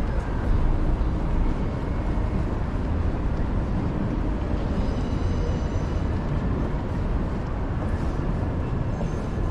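City street ambience: a steady low rumble of road traffic, with no single event standing out.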